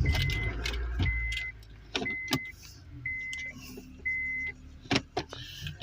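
A 2004 Honda Accord's interior warning chime beeps about once a second, five times, then stops, over sharp plastic clicks and knocks as the shifter knob is worked back into place.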